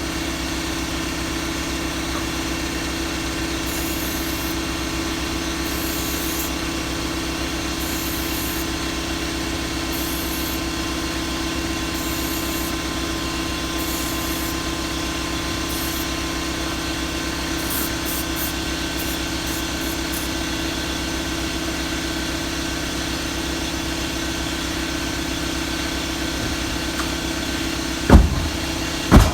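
International Harvester 1486 tractor's six-cylinder diesel idling steadily, freshly cold-started after three months sitting. Two sharp knocks near the end.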